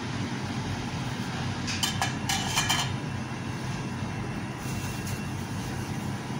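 Metal ladle stirring a pot and clinking against metal cookware, several sharp clinks and scrapes about two seconds in, over a steady low hum.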